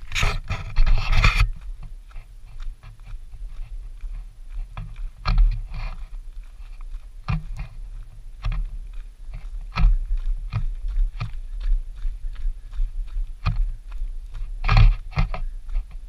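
Footsteps on a gravel trail, an uneven step every half second to a second, with rubbing and handling noise on the action camera for the first second or so.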